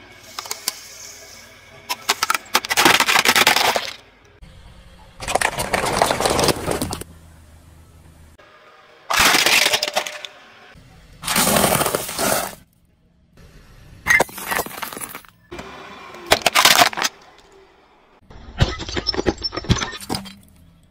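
A car tyre rolling over and crushing small objects, heard as about seven separate bursts of breaking and cracking noise, each one to two seconds long, with short pauses between them.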